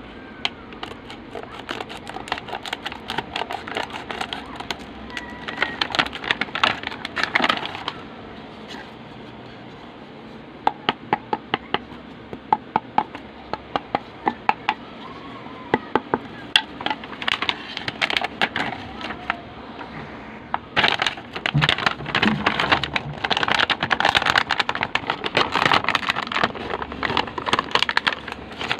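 Clear plastic packaging crinkling and crackling as hands unwrap a pair of table tennis paddles and balls. It comes in dense bursts near the start and through the second half, with a run of separate sharp clicks in the middle.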